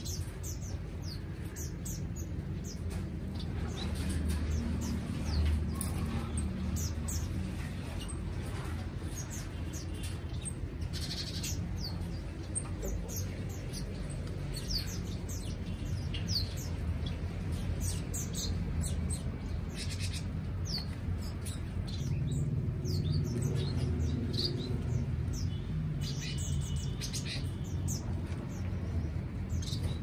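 Small aviary finches chirping: many short, high cheeps that fall quickly in pitch, scattered irregularly throughout, over a low steady background rumble.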